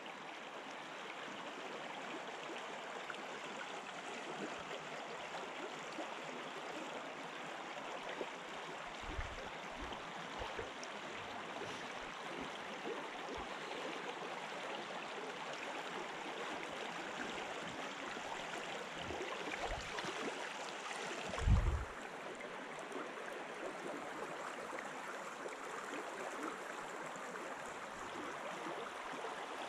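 Steady rush of flowing river water, with a few dull low thumps, the loudest about twenty-one seconds in.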